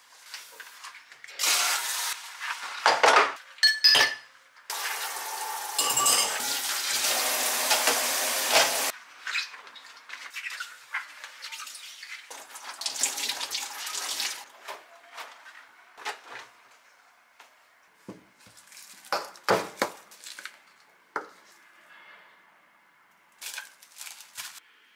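Washing up at a stainless-steel kitchen sink: tap water running in two long spells, with dishes and cutlery clinking and knocking against the sink. Afterwards a cloth wipes the sink dry, a few more knocks follow, and plastic wrap crinkles near the end.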